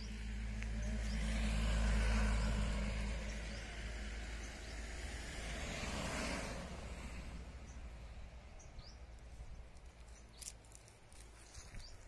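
Cars passing on a road, with engine and tyre noise that swells to a peak about two seconds in and again about six seconds in, then fades away. A few faint bird chirps come through near the end.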